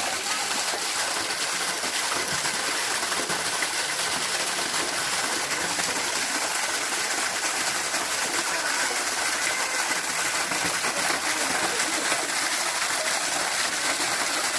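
Waterfall running at low flow: a steady rush of falling water.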